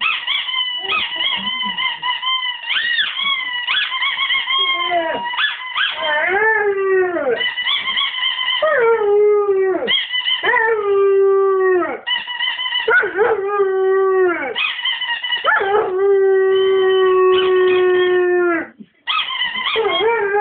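Weimaraner howling over and over along with the squeaks of a rubber squeaky toy he is chewing. Each howl slides down in pitch and settles on a long held note; the longest is held for about three seconds near the end.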